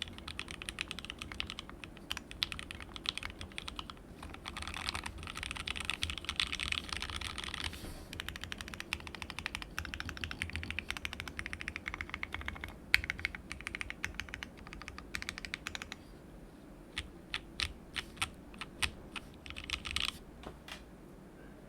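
Typing on a plateless mechanical keyboard: lubed, filmed 43 Studio Toy switches soldered straight onto a flex-cut WT60-D PCB in a resin case, with ABS Cherry-profile keycaps. Fast continuous keystrokes give way to slower, separate keypresses for the last few seconds.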